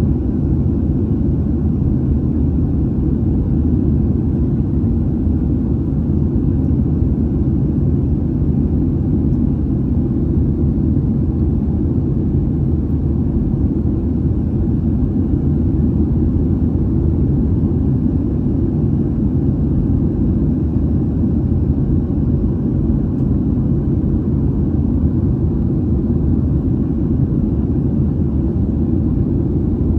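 Steady low rumble of a Boeing 737's jet engines and rushing airflow, heard inside the passenger cabin during the climb after takeoff, with faint steady low hums in it.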